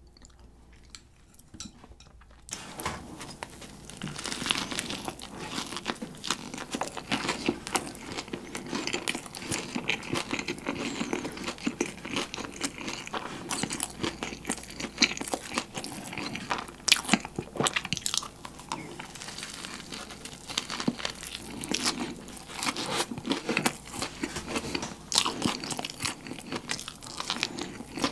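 Close-miked biting and chewing of a fried-chicken burger, yangnyeom chicken stuffed into a soft bun with cabbage slaw, with dense irregular crisp crunches. It starts about two and a half seconds in, after a near-quiet start.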